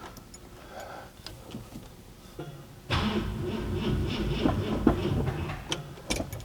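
1966 Ford Thunderbird's starter cranking the engine sluggishly for about three seconds, starting about three seconds in, without the engine catching: the battery is low. A few faint clicks before it.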